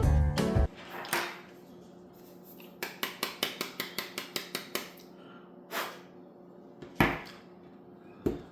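Music stops within the first second. Then come a quick run of a dozen or so small clicks and scrapes over about two seconds, and three louder single knocks, from a small hand tool picking old adhesive out of a phone's camera lens housing.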